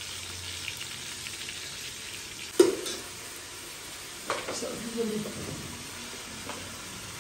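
Browned onions frying in oil in a steel pot, giving a steady sizzle. A sharp knock about two and a half seconds in is the loudest sound, and a smaller clatter follows a couple of seconds later.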